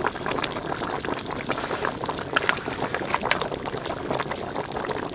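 Pieces of mutton frying in hot oil in a large wok, a steady sizzle with scattered small crackles and pops, as ground coriander and cumin are sprinkled in.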